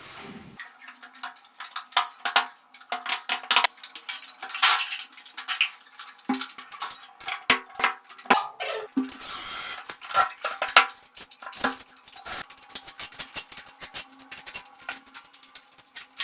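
Metal hand tools clinking, tapping and scraping during drywall work, in an irregular run of sharp knocks. There is a longer scrape about nine seconds in.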